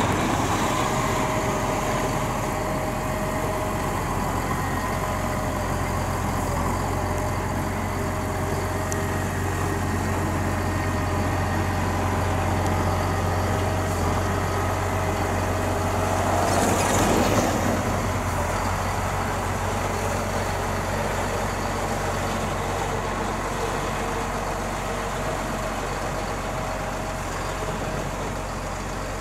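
Diesel engine of a Komatsu motor grader running steadily as the grader plows snow. About two-thirds of the way through there is a brief rising and falling whoosh.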